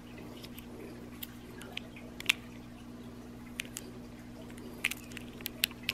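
Scattered small, sharp clicks and taps as hands handle a wristwatch and its metal bracelet clasp while it is being put back together after a battery change. A steady low hum runs underneath.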